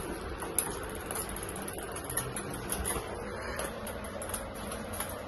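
A Chihuahua's claws clicking irregularly on a tiled floor as it scampers about, over low room noise.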